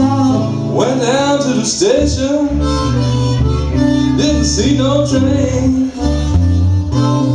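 Blues harmonica playing a lead line whose notes bend up and down, over a steady acoustic guitar accompaniment.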